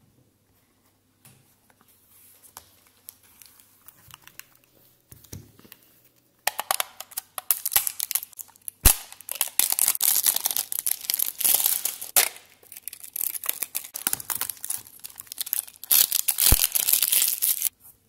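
Clear plastic bags crinkling and crackling as they are pulled off hexagonal sheets of neodymium magnetic balls. The crinkling is loud from about six seconds in, after a few faint handling clicks.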